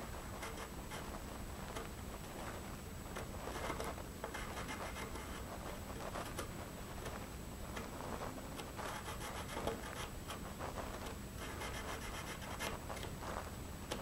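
Faint, irregular scratching strokes of a marking tool tracing the keyhole outline of an escutcheon onto wood.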